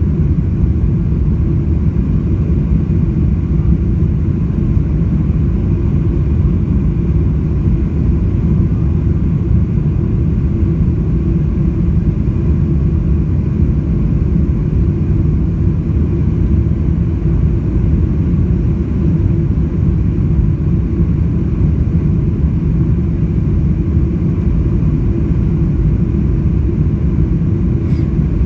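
Boeing 747-400 cabin noise heard from a window seat: a steady, loud rumble of the jet engines and airflow, unchanging in level.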